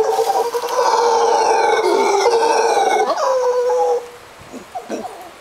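Mantled howler monkey howling: one long, loud, drawn-out roar at a steady pitch that cuts off suddenly about four seconds in. It is followed by a run of short, rhythmic grunts.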